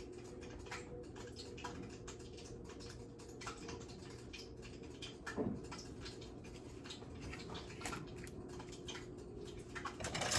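Hot cooking fat crackling and popping in a pan on the stove: scattered, irregular small pops over a steady low hum.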